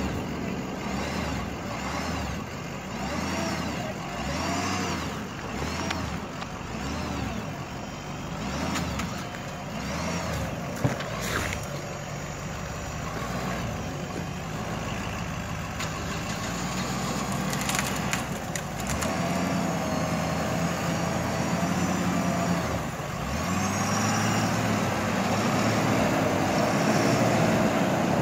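Heavy diesel dump truck engine running steadily at close range, its note rising and falling in the first part and climbing again near the end.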